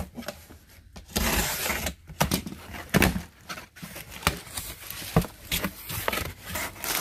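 Utility knife slitting the packing tape along a cardboard shipping box, a dry rasping cut lasting about a second, followed by the cardboard flaps being pulled open with scattered knocks and scrapes.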